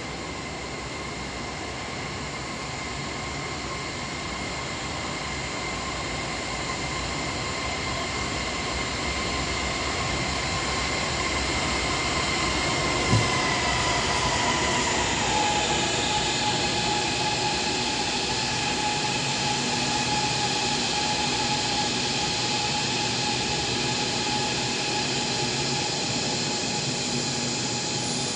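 Ampang Line light-rail train pulling into the station, building up gradually as it approaches. Its motor whine drops in pitch a little after halfway as it brakes, then holds at the lower pitch. There is one short knock about halfway through.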